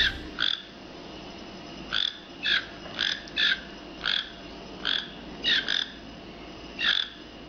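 A toucan calling: about a dozen short, clipped calls at uneven intervals, over a faint steady background hiss.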